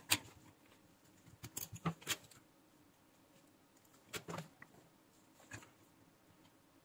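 Faint, scattered clicks and light taps of small parts being handled on a workbench: a removed micro switch and multimeter test leads. There is a short cluster of clicks early, another a little past the middle and a single one near the end.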